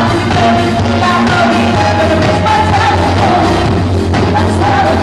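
Live band music: a drum kit and electric guitar playing a pop-rock song, with women singing the melody into microphones.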